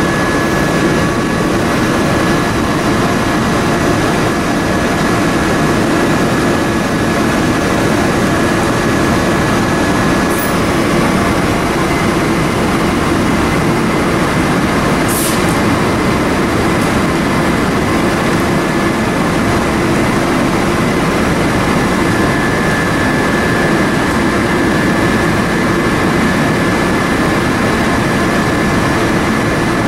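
Steady rushing air of a compressed-air paint spray gun spraying in a paint booth, with a thin steady whine running through it.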